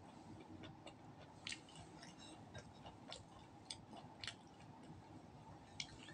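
Faint chewing of roast duck and rice eaten by hand, with a handful of small, sharp mouth clicks spread through.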